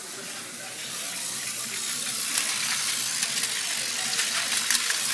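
Motorized toy train running along plastic track, its small motor and gears whirring, growing louder about a second in, with sharp clicks from about two and a half seconds in.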